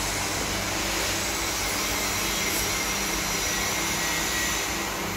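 Steady workshop machine noise: a continuous rushing whoosh with a faint high whine, unchanging throughout.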